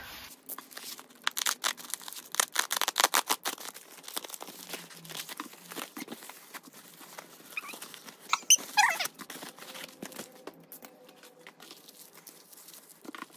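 A plastic bubble mailer being opened and torn, with crinkling of plastic and bubble-wrap packets as the contents are pulled out and handled. The crackling is densest in the first few seconds, and there is a brief squeak about eight seconds in.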